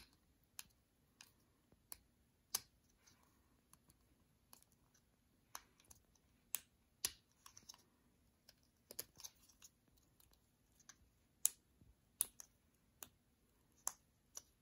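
Faint, irregular small clicks and ticks of fingers handling a thin metal canning-jar lid while pressing a rubber self-healing injection port into its drilled hole.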